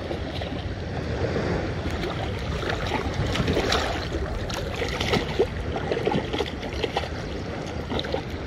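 Wind on the microphone and small waves lapping, with a hooked largemouth bass splashing and thrashing at the surface as it is reeled in, in many short irregular splashes.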